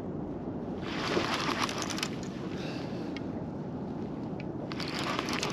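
Steady rushing of wind and fast river water, broken twice by bursts of rapid clicking, about a second in and again near the end.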